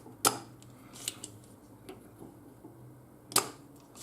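Two sharp snaps about three seconds apart, with lighter clicks between: a spring-loaded desoldering pump being fired to suck solder out of the capacitor holes on an LED driver board.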